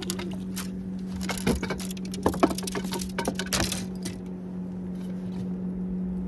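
Boat motor running with a steady low hum. Over it, a quick run of clicks and rattles comes between about one and four seconds in, while a hooked fish is being brought in.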